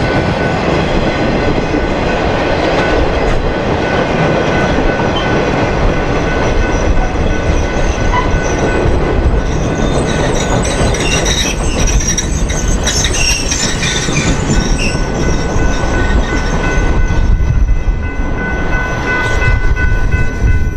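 A train rolling on the rails: a steady rumble of wheels on track with high squealing tones over it, strongest about halfway through.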